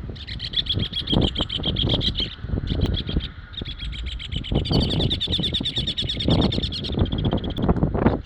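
Songbird singing long trilled phrases of rapid, evenly repeated high notes, four or five phrases in a row with brief gaps, the longest running about three and a half seconds. Uneven low rumbling noise sits beneath the song.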